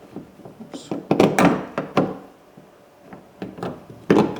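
Sharp clicks and knocks of a replacement exterior door handle being worked into its opening in a pickup's door, a run of them about a second in and another cluster near the end.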